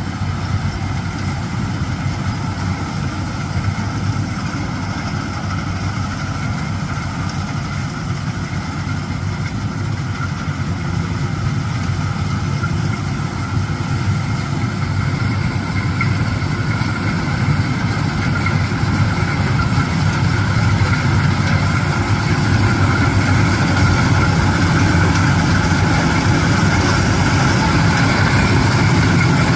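Rice combine harvester running steadily with its engine and machinery going, growing slightly louder toward the end, with a thin high whine above it.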